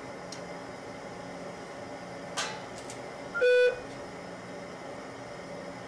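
A short electronic beep about three and a half seconds in, a quick higher chirp running straight into a lower, buzzy tone. Under it a steady hum of room equipment, with a brief soft swish a second before the beep.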